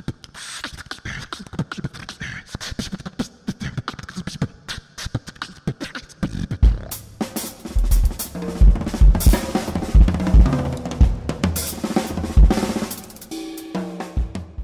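Live beatboxing into a microphone: rapid clicks and snare-like mouth hits. About six seconds in, a drum kit takes over, with heavy bass-drum beats and cymbal strokes.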